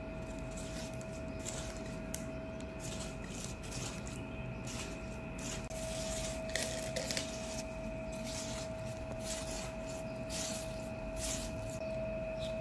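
Knife cutting through ripe watermelon flesh, scoring it into small cubes: a run of short, irregular, soft wet cutting strokes. A steady faint hum with a thin tone runs underneath.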